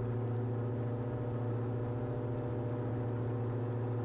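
Steady drone of a Diamond DA42's twin engines and propellers at takeoff power in the initial climb, heard inside the cockpit: an even hum of one fixed pitch with its overtones over a low rush of noise.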